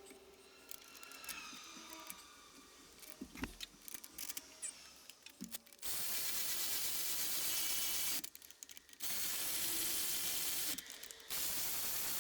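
A hand-held power tool run in three bursts of about two seconds each, after several seconds of faint clicks and taps from hand work.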